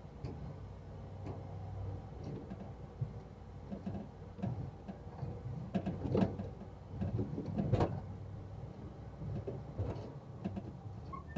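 A GMC Sierra 2500 pickup driving slowly over a bumpy field, heard from its bed: a steady low rumble with irregular clunks and rattles from the loose gear in the bed and the hitched trailer. The two loudest knocks come about six and eight seconds in.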